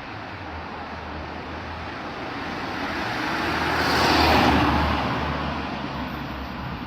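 A road vehicle passing by: a rush of noise that grows to its loudest a little past the middle and then fades away.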